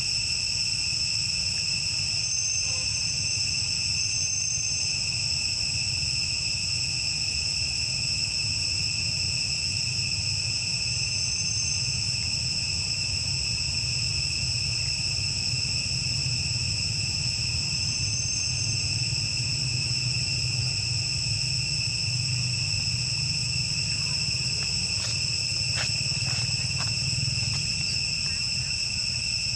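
Steady, high-pitched chorus of insects ringing without a break, over a low steady rumble. A few faint clicks come near the end.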